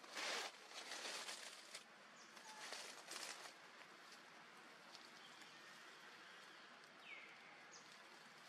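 Dry leaves rustling in three short bursts in the first few seconds as macaques shift and handle plants on the leaf litter, then a quiet outdoor background.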